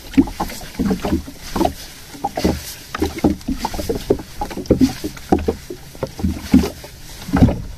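Small boat rocking, with water slapping and knocking against its hull in irregular thuds several times a second.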